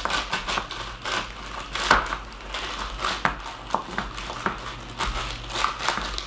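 Plastic snack bag crinkling over the fingertips as they press sticky fudge mixture down into a plastic container: an irregular run of crackles and rustles.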